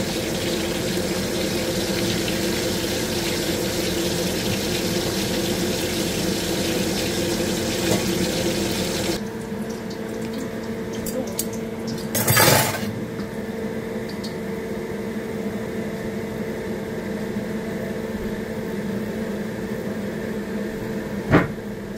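A steady hiss of kitchen noise for about nine seconds, then an abrupt change to a quieter background with a steady hum. A brief loud noise comes about twelve seconds in, and a short sharp click near the end.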